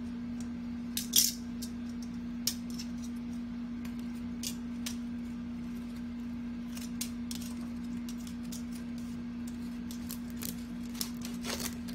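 Metal tongs and a kitchen knife clicking against a cooked lobster's shell and a wooden cutting board as the tail is cut from the head: scattered sharp clicks, the loudest about a second in, over a steady low hum.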